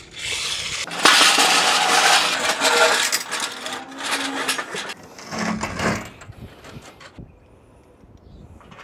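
Metal parts being handled during rack assembly: rattling and scraping, loudest for a couple of seconds near the start, then a few shorter rattles and sharp clicks.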